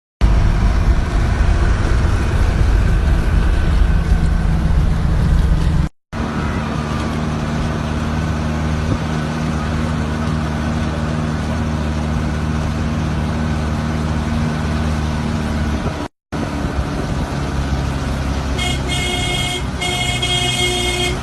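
Minibus engine running steadily on the road, heard from inside the vehicle, with a horn honking in several short blasts near the end.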